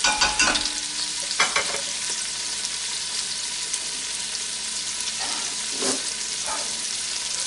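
Sofrito of chopped onion and peppers sizzling steadily in oil in a stainless steel pot. A wooden spoon stirs and knocks against the pot during the first second and a half, then the sizzle carries on alone with a few small clicks.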